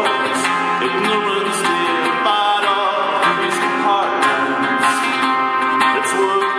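Live music: a man sings over a small acoustic string instrument strummed in a steady rhythm.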